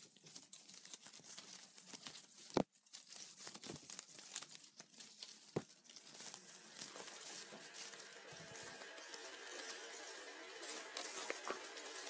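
Foley crinkling and crackling standing in for insects in grass. Scattered sharp clicks come first, then a denser rustling crackle builds from about halfway.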